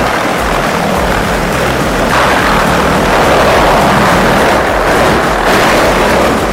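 Wood chipper running and shredding wood, a loud steady noise that grows louder about two seconds in.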